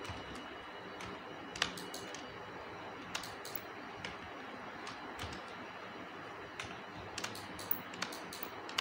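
Computer keyboard keys and mouse buttons clicking sparsely and irregularly, about one click a second, the loudest about a second and a half in, over a steady faint hiss.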